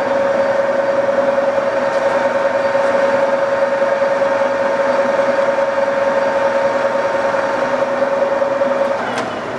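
Lion 20" x 40" gap bed lathe running at speed: the geared headstock gives a loud, steady high-pitched whine after spinning up. About nine seconds in, the whine stops with a click and the level drops.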